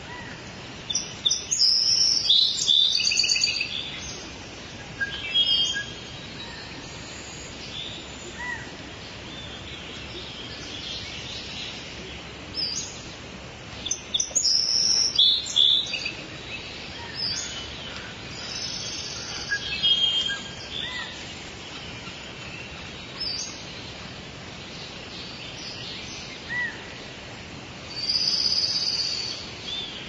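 Rainforest ambience: birds chirping and calling in scattered bursts over a steady background hiss.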